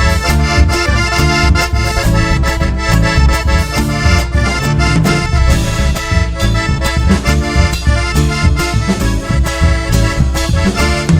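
Chamamé band playing an instrumental passage led by accordion over a steady bass and rhythm accompaniment.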